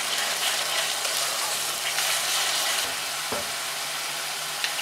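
Onion and ginger-garlic spice paste sizzling in hot oil in a kadai while being stirred with a flat steel spatula, with a couple of light knocks partway through.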